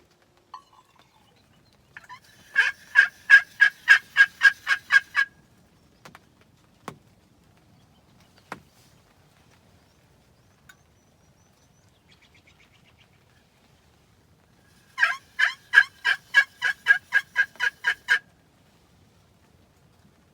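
Two runs of about a dozen turkey yelps, about four a second, one a few seconds in and one near the end. Two sharp clicks fall between them.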